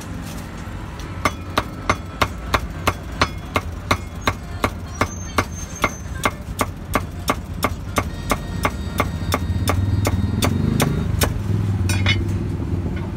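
A meat cleaver chopping roasted pork on a thick round wooden chopping block: a steady run of sharp strikes, about three a second, starting about a second in and stopping near the end. A motor vehicle's engine rumbles in the background and swells toward the end.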